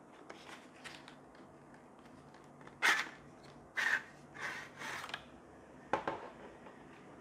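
A 30 cm T5 LED light fixture sliding out of its cardboard box: a few short scraping rasps of the fitting against the cardboard, then a sharp knock as it is set down on the table about six seconds in.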